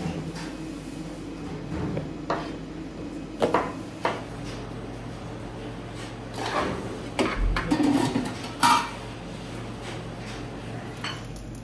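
Dishes and metal utensils being handled: a dozen or so irregular clinks and knocks, busiest in the second half, over a steady low hum.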